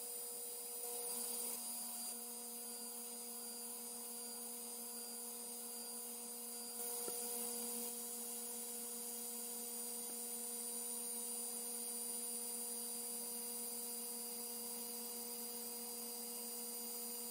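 Faint, steady hum with several fixed tones from an xTool D1 Pro 40W diode laser engraver at work cutting plywood: its fans and motors running.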